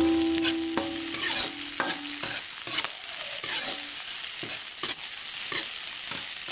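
Metal ladle stirring and scraping chopped chilies in a steel wok, with irregular clinks and scrapes over the sizzle of the chilies frying in hot oil.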